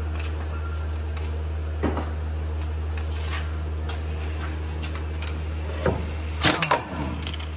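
Clicks of an impact wrench and its socket being handled and fitted onto a 15 mm hub-bearing bolt, then a short burst from the impact wrench about six and a half seconds in, its pitch falling as it stops. A steady low hum runs underneath.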